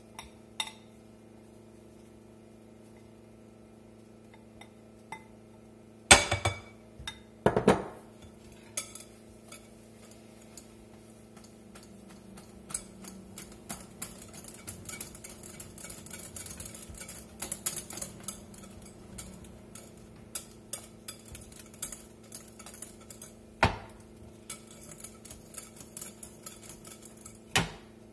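Wire whisk and spatula working pancake batter in a glass mixing bowl, clinking and tapping against the glass in quick irregular clicks. There are a couple of louder knocks on the bowl about six seconds in, and two more near the end.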